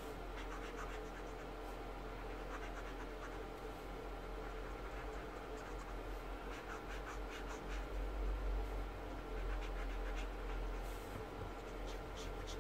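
Felt-tip nib of a Promarker alcohol marker rubbing on paper in repeated short shading strokes, faint over a steady low hum.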